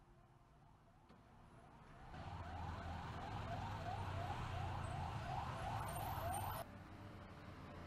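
A siren sounding in quick rising sweeps, about two a second, over a low hum. It grows louder about two seconds in and cuts off suddenly near the end.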